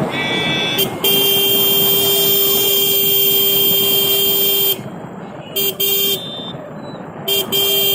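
Vehicle horn honking: one long blast of nearly four seconds starting about a second in, then two pairs of short toots, over steady background noise.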